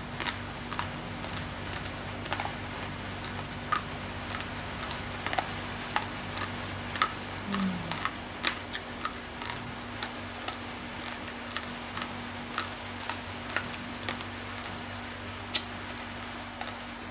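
Uncooked rice grains being crunched between the teeth: sharp, irregular crunches, about one or two a second, over a steady low hum.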